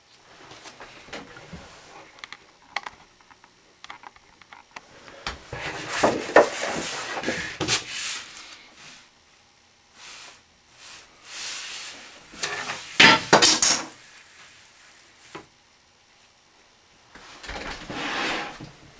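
Hard objects being handled on a desk, clinking and clattering against each other in three uneven bursts, with scattered small clicks in between.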